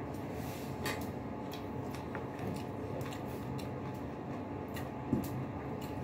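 Someone eating with their fingers: chewing and small clicks over a steady low hum, with a soft knock about a second in and a louder thump about five seconds in.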